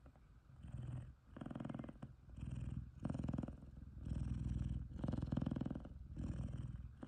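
F2 Savannah cat purring loudly in contentment, a low rumble that comes in rhythmic pulses of under a second, about one a second, with each breath in and out.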